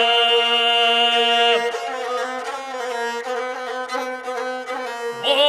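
Gusle, the single-string bowed Montenegrin folk fiddle, playing an instrumental phrase between sung verses of an epic song. It opens on a long held note, then moves into a wavering, ornamented melody.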